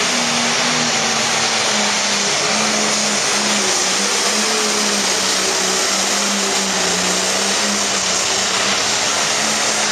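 Pro Stock pulling tractor's turbocharged diesel engine running flat out under load as it drags the weight sled down the track: a loud, steady drone whose pitch wavers slightly.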